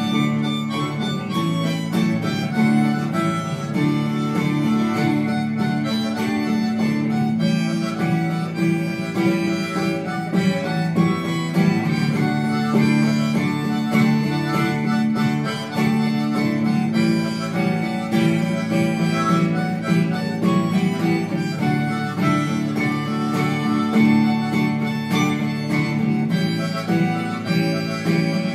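Harmonica playing a sustained melody with acoustic guitar accompaniment.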